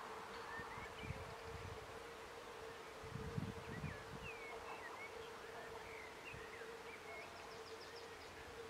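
Faint dusk meadow ambience: a steady insect hum with scattered distant bird chirps and whistles, and a few low rumbles about a second in and again around three to four seconds in.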